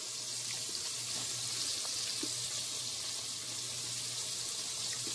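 Steady hiss of fish frying in hot oil, with a low steady hum underneath and a few faint ticks.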